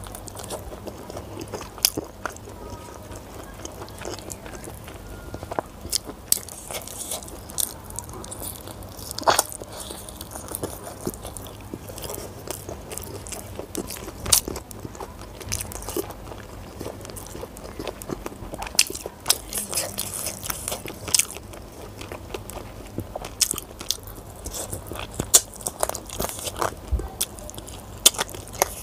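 Close-up chewing and biting of curried chicken on the bone and rice eaten by hand, with irregular wet clicks, smacks and crunches.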